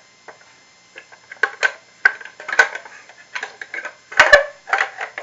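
Small plastic drawer and door of a toy fridge playset being handled: a string of light clicks and taps, the loudest pair about four seconds in.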